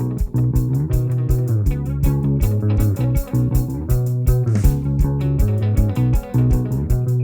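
Background music: guitar and bass guitar over a steady beat.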